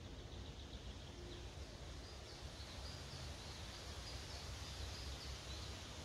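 Quiet forest ambience: a row of faint, short bird chirps in the distance over a low, steady rumble and soft hiss.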